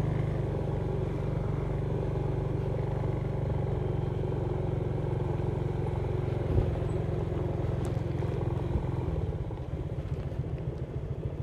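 Engine of a road vehicle running steadily on the move, with one knock about six and a half seconds in. Near the end the engine eases off and its pulsing slows.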